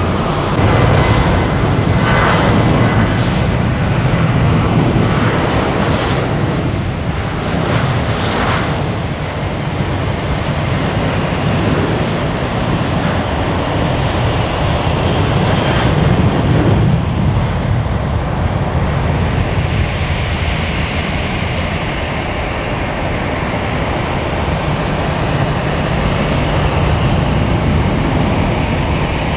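Jet engines of a Boeing 737 airliner at takeoff thrust as it lifts off and climbs away, a loud, steady rushing noise.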